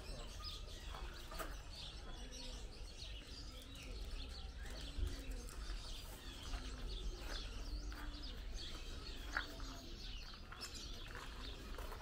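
Pigeons cooing, a run of low coos about a second apart, over many small birds chirping.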